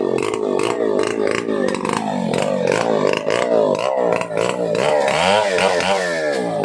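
Stihl 070 two-stroke chainsaw running, its engine revved up and down again and again.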